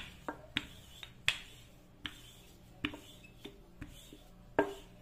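Rolling pin knocking and clicking against the countertop while rolling out bread dough: about ten sharp, irregular taps, the loudest right at the start and near the end.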